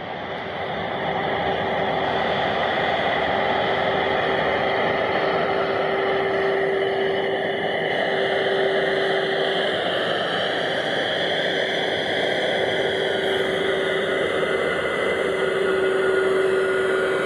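Jet airliner's engines running at taxi power close by: a steady rush with a constant low hum and a higher whine that drifts slowly up and down in pitch.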